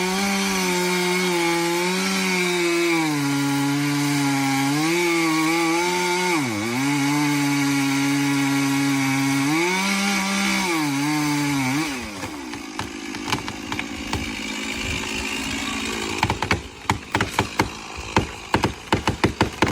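A two-stroke chainsaw running hard while cutting wood, its engine pitch dropping each time the bar bites into the timber and rising again as it eases off. The saw stops about twelve seconds in, and a rapid series of sharp knocks and crackles follows near the end.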